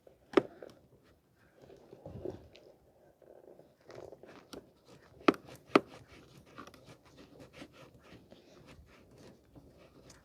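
Hand tools and metal parts being handled: scattered clicks, knocks and rustling, with three sharp clinks, one near the start and two close together a little past halfway.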